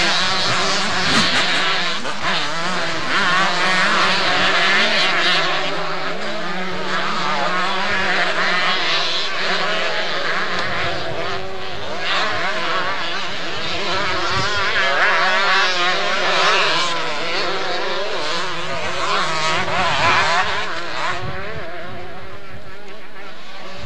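Several 125cc two-stroke motocross bike engines racing, their pitch rising and falling over and over as the riders work the throttles.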